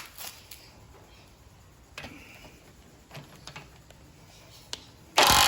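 Light clicks and knocks as the tool is handled and set onto the nut, then near the end a sudden loud burst of a knockoff Milwaukee cordless impact wrench hammering, breaking loose a nut torqued to 150 ft-lb.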